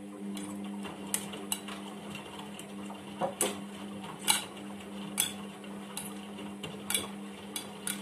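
Indesit IWUC 40851 front-loading washing machine turning its drum during the wash. The motor gives a steady low hum, and the tumbling wet load adds irregular clinks and knocks against the drum.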